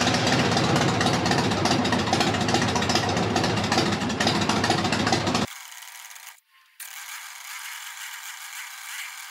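Harley-Davidson Evolution V-twin engine running just after starting, loud with a fast rattle, cutting off abruptly about five and a half seconds in. A faint, thin steady noise follows.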